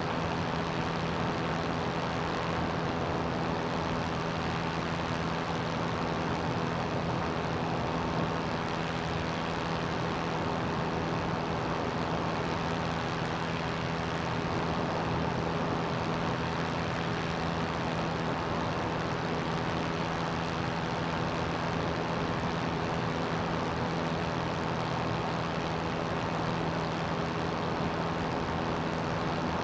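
CGS Hawk ultralight's engine and propeller running steadily in cruise flight, a constant drone with a rush of air over it and no change in pitch.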